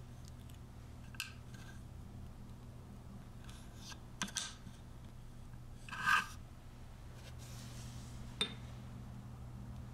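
Tiny knife cutting through a grilled rice cake on a small wooden cutting board: a few soft scrapes and taps of the blade on the wood, the loudest about six seconds in, with a sharp click near the end. A steady low hum runs underneath.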